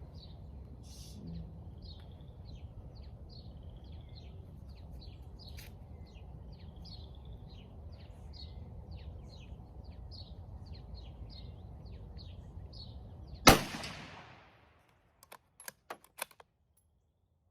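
A single shot from a Savage Axis .223 bolt-action rifle about three-quarters of the way through, sharp and by far the loudest sound, with a short tail after it. Before the shot a bird chirps over and over, a couple of short notes a second, over a steady low background noise. A few quick sharp clicks follow the shot.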